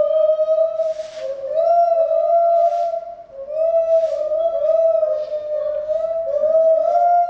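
Instrumental background music: a smooth, mid-pitched melody of held notes that glide into one another, with soft hissing percussion strokes roughly once a second.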